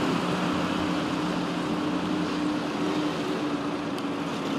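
Motor vehicles running on a road: a steady, even engine drone over road noise.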